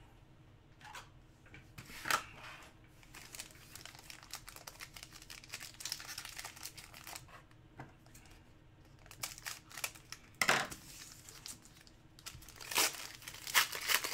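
Foil wrapper of a football trading-card pack crinkling in the hands and being torn open, with several sharp louder rips, a cluster of them near the end.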